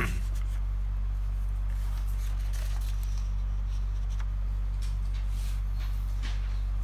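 Paper sheets being turned over and smoothed flat by hand, rustling softly several times, over a steady low electrical hum.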